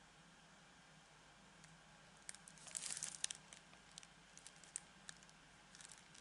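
Clear plastic packaging of a set of clear rubber stamps crinkling and crackling as it is handled. The sound starts a couple of seconds in, is loudest just after that, and then comes as scattered crackles.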